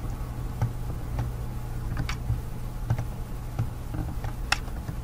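Computer mouse clicking, about half a dozen irregular clicks roughly a second apart, over a steady low hum.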